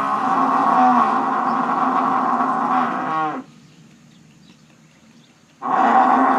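Buffalo bellowing: one long call that bends down in pitch and stops about three seconds in, then after a short pause a second call begins near the end.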